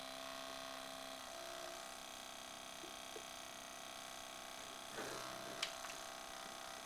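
Pioneer DV-440 DVD player's disc mechanism running with a steady grinding whir made of several steady tones, with a couple of faint clicks near the end. The noise comes from a tiny screw in the mechanism that has been tightened.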